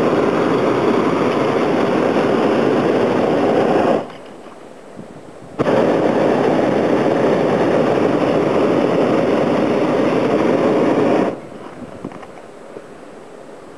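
Hot-air balloon's propane burner firing: a loud, steady blast that cuts off about four seconds in, fires again about a second and a half later, and shuts off after about six seconds.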